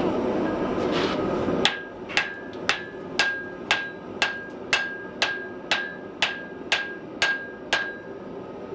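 Steady hammer blows on steel at an anvil, about thirteen at two a second, each with a short metallic ring, over the steady roar of a gas forge burner.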